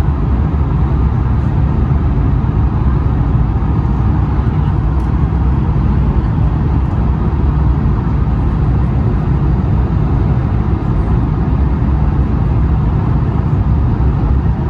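Steady cabin noise inside a Swiss Airbus A220-100 on final approach with flaps extended: a deep, even rumble and rush from its Pratt & Whitney PW1500G geared turbofans and the airflow past the fuselage.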